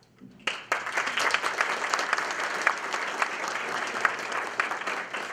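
A roomful of people applauding, starting about half a second in.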